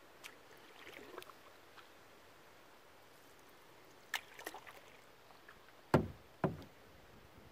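Canoe being paddled on calm water: quiet paddle dips and drips with a few sharp clicks, and two louder thumps about six seconds in.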